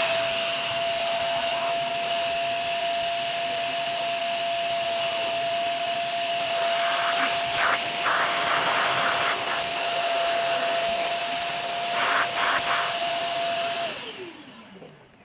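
HX-2020 vacuum cleaner running with a steady rush of air and a steady motor whine, with a few brief louder patches midway. Near the end it is switched off, and the whine falls in pitch as the motor spins down.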